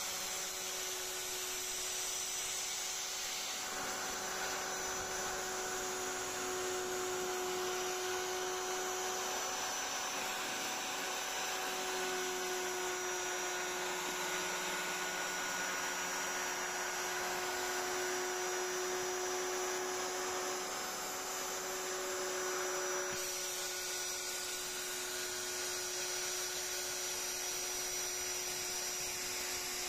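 Plunge router running at a steady high whine while its small carving bit cuts curved grooves into a wooden board. The cutting hiss grows fuller from about four seconds in and eases off a little after twenty seconds.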